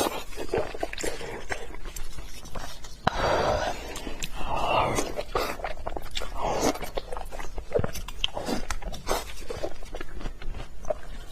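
A person eating close to the microphone: chewing and biting with wet, smacking mouth clicks and irregular noisy mouth sounds.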